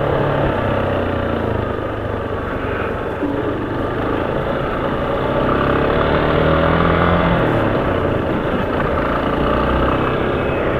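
Motorcycle engine running steadily while riding at low town speed, with traffic and road noise around it.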